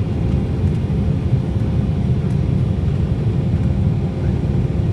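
Cabin noise of an Embraer 190 climbing after take-off: its GE CF34-10E turbofan engines and the airflow make a steady, deep noise, with a faint steady hum above it.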